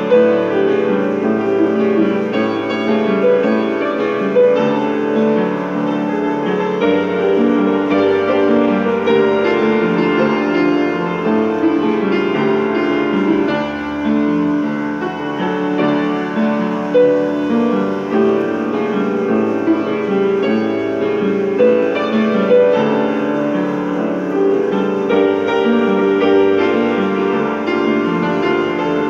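Upright acoustic piano played solo, a steady unbroken flow of notes with no pauses.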